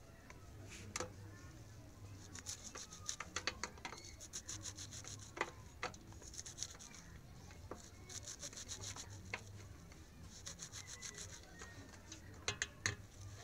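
Kitchen knife slicing a handful of leafy greens held in the palm: short bursts of quick rasping strokes, several a second, broken by a few sharp clicks.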